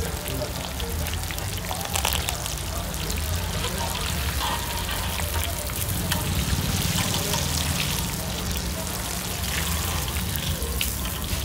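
Chicken pakodi pieces with curry leaves and green chillies sizzling in hot oil in an iron kadai, with many small crackles and pops, as they are moved and lifted with a perforated skimmer. A steady low hum runs beneath.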